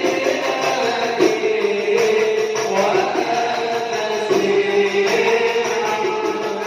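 Islamic shalawat sung in Arabic, the voice holding long, drawn-out notes over hand percussion with jingles in the style of a tambourine or frame drum.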